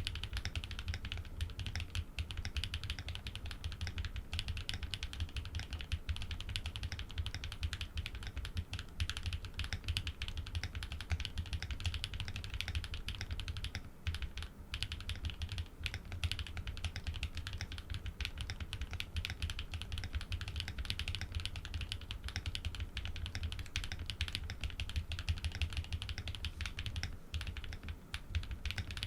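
Fast continuous typing on a custom Think 6.5 v2 mechanical keyboard fitted with Cow switches, PBT keycaps, an FR4 plate and full foam, giving dense clacks with a deep low thud under each keystroke. The typing pauses briefly twice.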